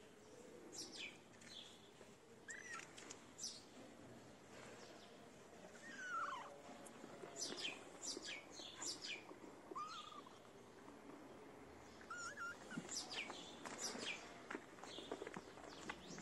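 A young calico kitten mewing several times, short thin cries that slide in pitch, over birds chirping.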